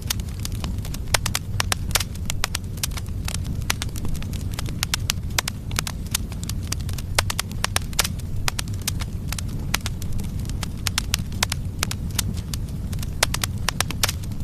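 Firewood logs burning in a fireplace: a steady low rumble of the flames with frequent, irregular sharp crackles and pops.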